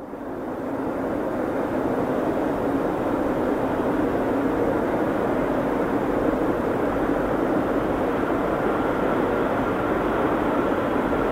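Approaching freight train of tank cars hauled by a three-section VL11M DC electric locomotive: a steady rushing rumble of the locomotive and wheels on rails. A faint steady whine joins about two-thirds of the way through.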